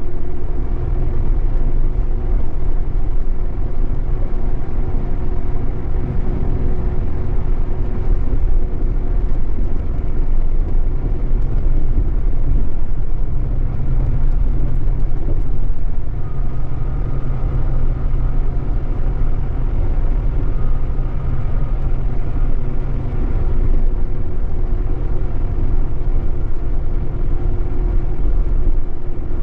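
Scania K420EB coach's diesel engine running steadily under way, heard inside the passenger cabin as a continuous drone mixed with road noise. A faint thin whine comes and goes about halfway through.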